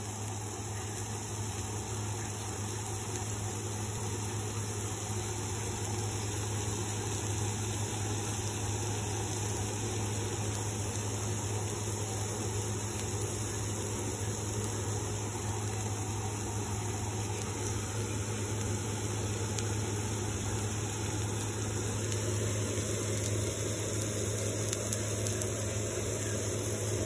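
A steady low hum with a constant hiss over it, unchanging throughout.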